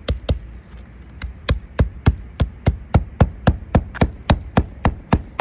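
A hammer driving roofing nails through asphalt ridge shingles: a couple of blows at the start, then a steady run of quick, even strikes, about four a second.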